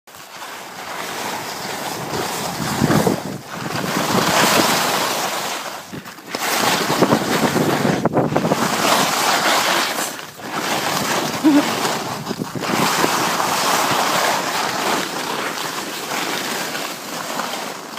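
Skis hissing and scraping over snow, with wind rushing on the microphone, swelling and fading with each turn and dropping briefly several times.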